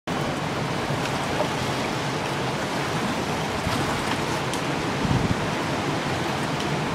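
Hurricane floodwater rushing along a street amid storm wind: a steady rush of noise, with a brief low rumble about five seconds in.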